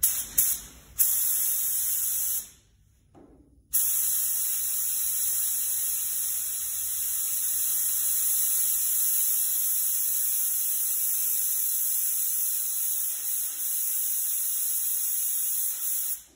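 Compressed-air paint spray gun hissing as the trigger is pulled: a few short pulls, a stop of about a second, then one long continuous pull of about twelve seconds that cuts off sharply. It comes as the gun is being set to 28 psi and its fan pattern adjusted for spraying sealer.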